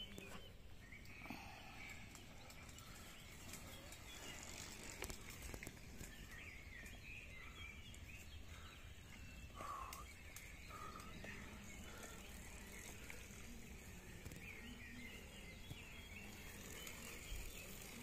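Faint birdsong in woodland, steady chirping throughout, with a few light clicks.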